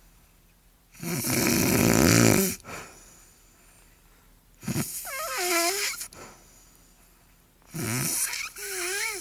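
A woman snoring in her sleep: three snores about three seconds apart, with quiet breathing between. The second and third snores carry a wavering whistle.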